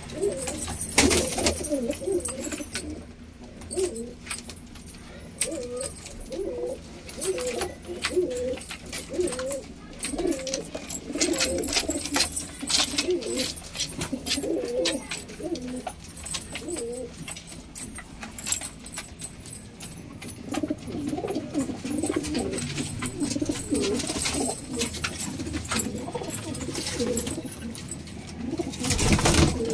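Domestic pigeons cooing again and again, several birds overlapping, with occasional short wing flutters and clicks; a louder flutter near the end.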